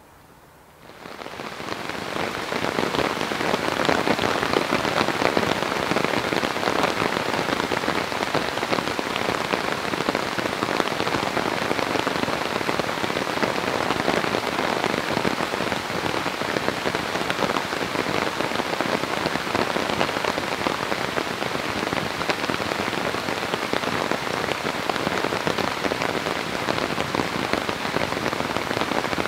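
Heavy rain falling steadily, a dense pattering hiss that builds up over the first couple of seconds and then holds.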